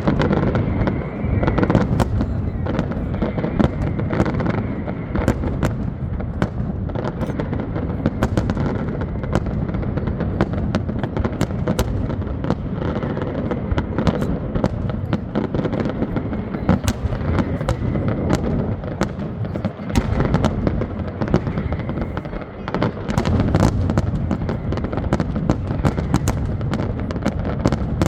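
Large fireworks display at its height: a dense, continuous barrage of bangs and crackles over a steady low rumble of booms.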